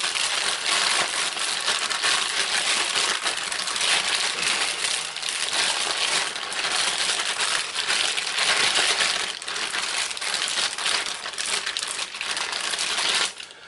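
A resealable plastic bag crinkling and crackling continuously as hands squeeze and knead it to work a wet marinade into pieces of meat; it stops shortly before the end.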